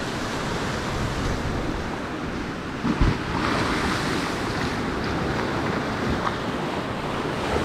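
Tropical-storm wind blowing hard and buffeting the microphone over waves washing in, a steady rushing noise; a brief low thump about three seconds in.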